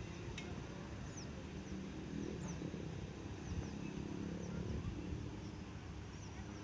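Small birds chirping, short high falling notes every second or so, over a steady low rumble.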